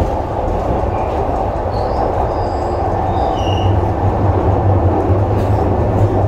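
Glasgow Subway train running through the tunnel, heard from inside the car: a steady, loud rumble of wheels on rail, with a few brief high squeals about two to three and a half seconds in.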